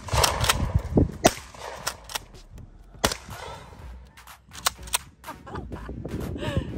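Shotgun shots fired at targets: several sharp cracks with short echoes, the loudest about a second in and about three seconds in. Wind rumbles on the microphone throughout.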